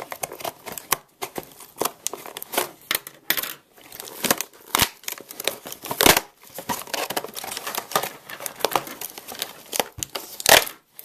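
Cardboard and clear plastic calculator packaging being pried and pulled open by hand: a busy run of crinkling, scraping and tearing with sharp clicks, and two louder rasps, about six seconds in and near the end. The box is stiff and hard to open.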